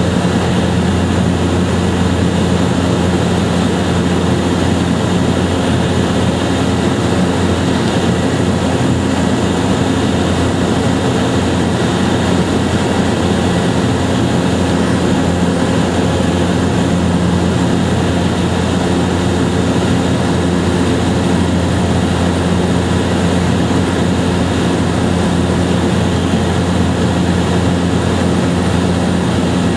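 A loud, steady engine drone with a deep hum that does not change.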